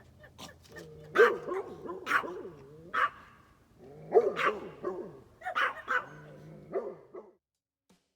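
Pack of coyotes yipping and howling in overlapping, wavering calls that come in clusters and cut off suddenly near the end.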